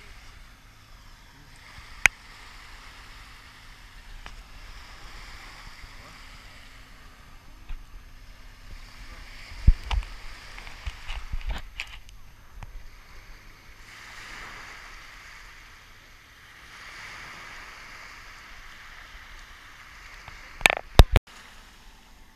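Small waves washing up onto a sandy beach, the wash swelling and fading every few seconds. There are a few sharp knocks, the loudest about ten seconds in and near the end.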